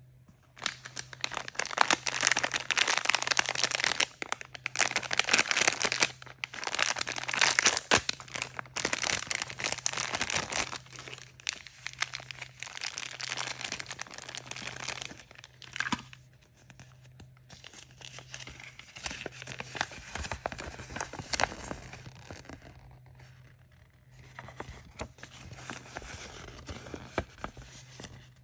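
Surprise-toy packaging being torn open and crinkled by hand: loud tearing and rustling for about the first eleven seconds, then softer crinkling with occasional clicks.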